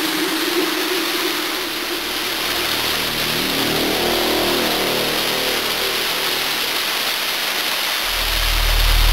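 Waterfall pouring, a steady, even rush of falling water. A low hum swells in near the end.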